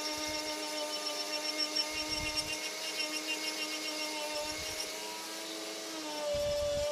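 Flex-shaft rotary tool running a carbide burr against olive wood, power carving a spoon: a steady motor whine that shifts in pitch and grows a little louder near the end as the load on the burr changes.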